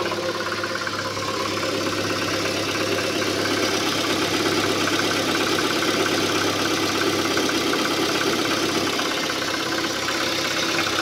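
Proton Persona 1.6 VVT four-cylinder engine idling steadily with a fast, rough ticking clatter. The mechanic calls it a rough noise, loud on cold mornings and gone once the engine is hot, and plans to open the timing chain and camshaft to trace it.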